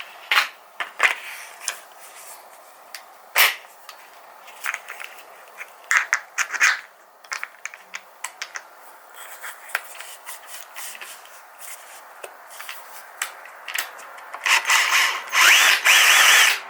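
Scattered clicks and rubbing of handling, then near the end a couple of seconds of a drill spinning a P800 abrasive sanding disc against a cloudy plastic headlight lens, a loud steady whirr and scrape.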